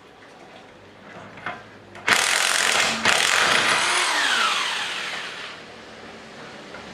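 Emerson EM-244 electric impact wrench running: a short burst about two seconds in, then a longer run that winds down with a falling whine and fades out.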